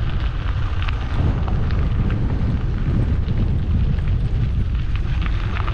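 Wind buffeting an action camera's microphone while riding a bicycle, a dense low rumble, with scattered small clicks and rattles from the bike on the road surface.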